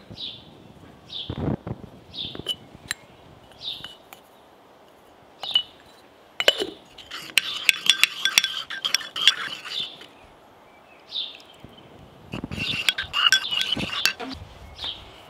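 Two bursts of rapid clinking, like dishes or glassware knocked together: the first around the middle, the second near the end. Throughout, a bird gives a short, high, falling chirp every second or two.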